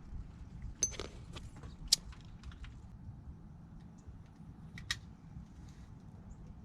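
A few light clicks and taps of small objects being handled, with a sharper tick about 1 s, 2 s and 5 s in, over a faint low hum.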